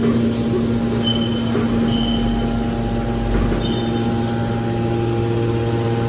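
Hydraulic power unit of a scrap metal baler running: a steady electric motor and pump hum with several fixed tones, and brief faint high whines about one and two seconds in.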